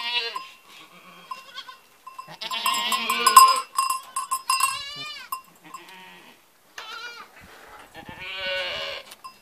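A herd of long-haired goats bleating, about five quavering calls one after another, the loudest and longest a couple of seconds in.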